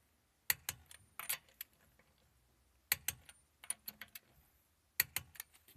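Torque wrench with an extension and socket working the wheel's lug nuts: sharp metal clicks and clinks in three short bursts, a few seconds apart.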